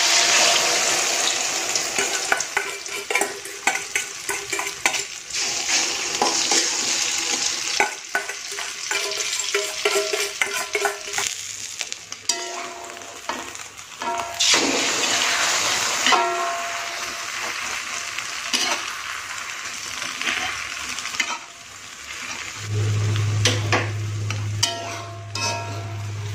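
Beaten egg mixture frying in hot oil in an aluminium wok: a loud sizzle that starts suddenly as the egg goes in, with a metal spatula scraping and tapping against the wok throughout.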